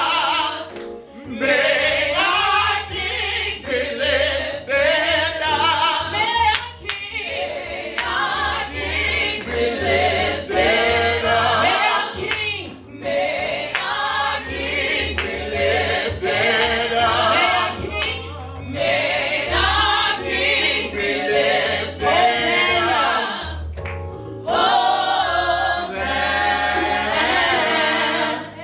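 Gospel song sung by a man and a woman together, over a steady low accompaniment.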